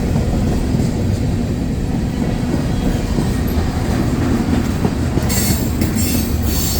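Freight cars of a slow-moving CSX train rolling past at close range: a steady, loud rumble of wheels on rail. About five seconds in, a high screech of wheels on the rail joins in.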